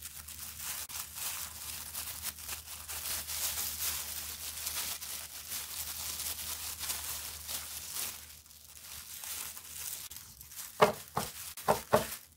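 Disposable plastic gloves crinkling and rustling as gloved hands rub wood stain onto wooden sticks. Near the end come a few short, louder knocks.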